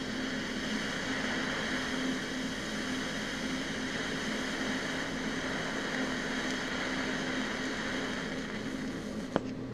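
Welding arc laying silicone bronze filler onto a brass casting at about 150 amps: a steady hiss with an electrical buzz. It stops with a click near the end, leaving a lower steady hum.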